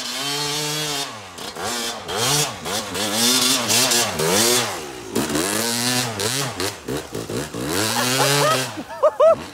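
Yamaha YZ250 two-stroke dirt bike revving up and down over and over as the rider works the throttle climbing a snowy trail. It is loudest around the middle, as the bike passes close.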